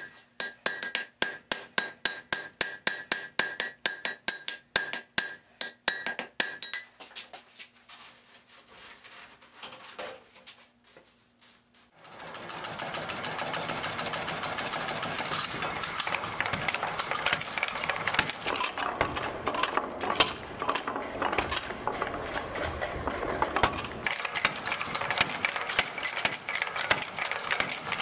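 Hand hammer striking red-hot steel on an anvil, about three ringing blows a second, thinning out and fading over the first dozen seconds. Then a mechanical power hammer running: a steady, dense rapid clatter.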